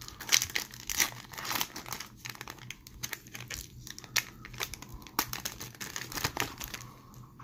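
A hockey card pack's foil wrapper being torn open and crinkled by hand: a quick run of sharp crackles and rips, the loudest in the first second, tapering off near the end.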